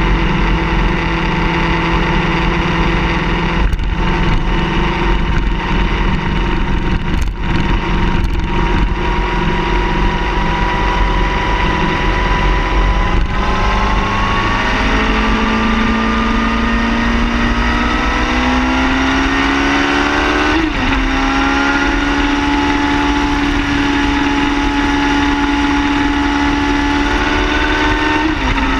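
Car engine under way, holding a steady note at first, then rising slowly in pitch as it accelerates. About two-thirds of the way in the pitch drops suddenly, as at a gear change, and it climbs slowly again, with road rumble underneath.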